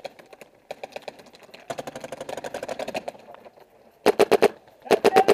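Paintball markers firing fast strings of shots, faint and distant at first. About four seconds in comes a much louder, close volley of four or five quick shots, and another just before the end.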